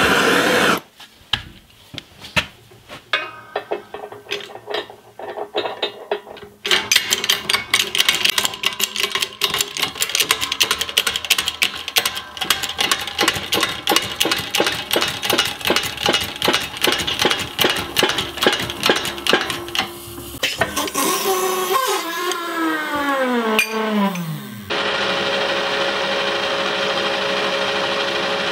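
Workshop machine sounds: scattered clicks and knocks, then a fast, even clicking for about a dozen seconds. About 21 seconds in, a machine motor winds down with a falling whine, and from about 25 seconds a metal lathe runs steadily with a constant hum while cutting a steel part.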